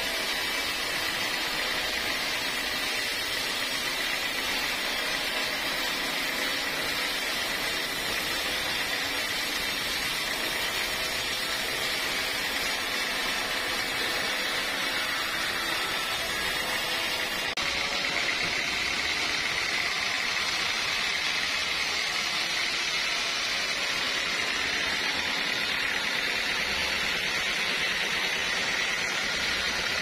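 Band sawmill blade cutting lengthwise through a teak log: a steady, continuous high-pitched saw whine and hiss. The tone shifts slightly about halfway through.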